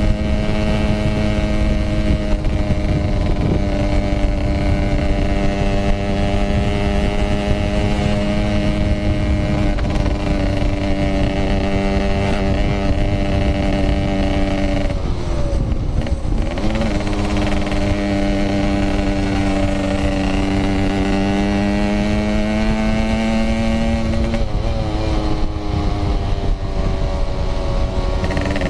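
Yamaha RX-King's 135 cc two-stroke single-cylinder engine running on the move through a 'packing power' exhaust, holding a steady note. About halfway through the throttle is eased and the pitch dips, then climbs back, and it changes again near the end.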